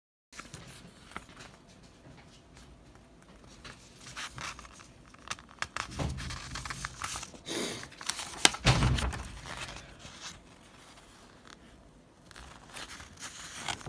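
Packaging being torn open and crinkled by hand, with scattered rustles and small clicks. The handling is busiest and loudest from about six to nine seconds in.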